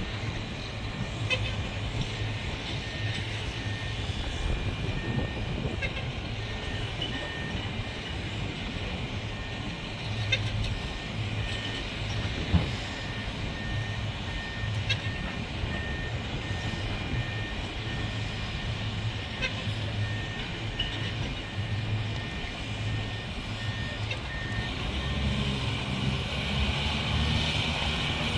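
Heavy construction machinery running, with a reversing alarm beeping steadily and a few sharp metallic knocks.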